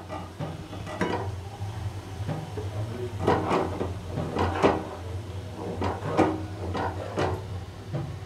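Metal spatula scraping and knocking against an aluminium kadai in irregular strokes, about one or two a second, as frothing ghee is stirred over a low steady hum. The milk solids have turned brown: the ghee is at the finished stage.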